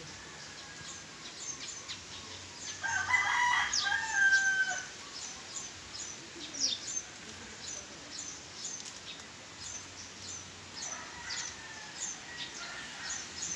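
A rooster crowing once, loud, about three seconds in, with a fainter crow near the end, over frequent short chirps of small birds.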